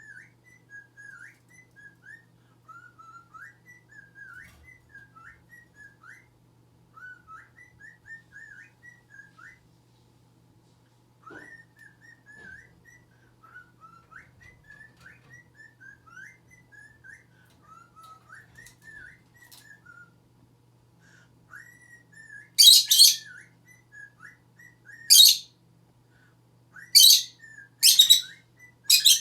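Pet lovebird chattering in a continuous run of quick squeaky chirps and whistles, with a short pause about a third of the way in. Starting about three quarters of the way through, about five loud, sharp shrieks break in. A steady low hum sits underneath.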